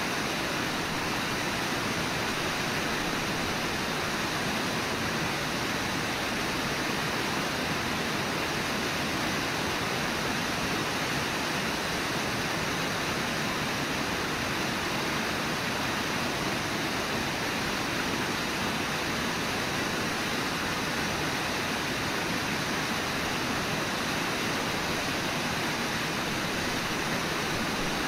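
Steady rush of the Brooks River's flowing water and falls, an even unbroken roar.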